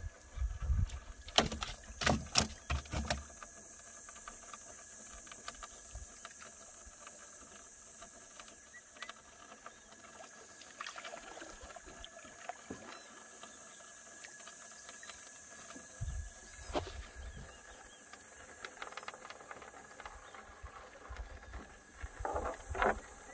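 Knocks and clatter of gear being handled in a small fishing boat during net fishing: a quick run of sharp knocks about two seconds in, a few more later, over a steady high hiss.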